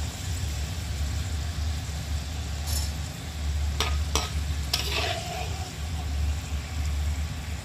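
Potato strips deep-frying in hot oil in a wok, a steady sizzle with a low hum underneath, being fried until cooked through and browned. A metal spoon stirring them clicks against the pan a few times around the middle.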